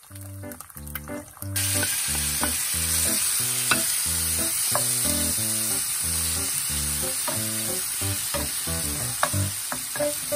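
Chopped kimchi sizzling in hot oil in a frying pan as a spatula stirs it, the steady sizzle starting about a second and a half in, with occasional scrapes and clicks. Background music with a repeated low note pattern runs underneath.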